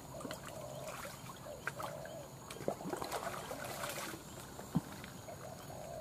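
Faint outdoor background noise with a few soft clicks.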